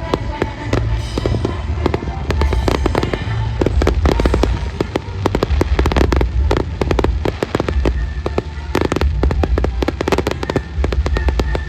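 Fireworks going off in a rapid, unbroken barrage of bangs and crackles over a continuous deep rumble.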